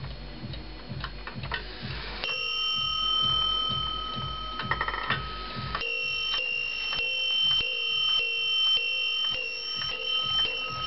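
Warmink one-day Zaanse wall clock striking its bell on the hour as its minute hand is pushed round to twelve: two bell strikes, one about two seconds in and one near six seconds, each left ringing, with a quick run of clicks from the movement between them. The movement ticks steadily underneath.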